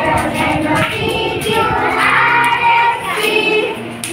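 A group of young children singing together in chorus while clapping hands, with the claps heard through the singing.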